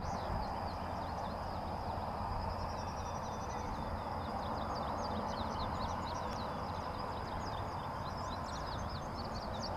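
Open-field outdoor ambience: many quick high chirps from small birds throughout, over a thin steady high whine and a low rumble of wind on the microphone.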